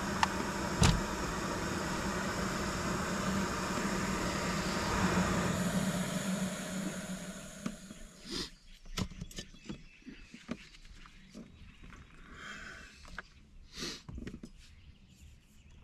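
Jetboil canister gas stove burner running with a steady roar, cutting off suddenly about eight seconds in as the water for coffee is done. Then scattered clinks and knocks as the insulated cooking cup is lifted off the burner and handled.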